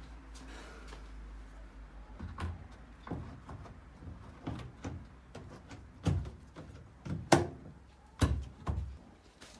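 Irregular metal knocks and clunks from hands working at a Dacia 1300's boot lid hinge and trunk bodywork, about eight in all, the loudest a couple of seconds before the end.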